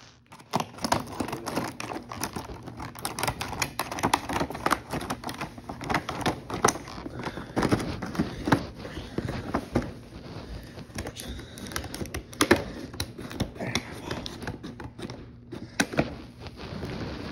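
Clear plastic blister packaging being cut open with scissors and handled, making irregular snips, crackles and clicks.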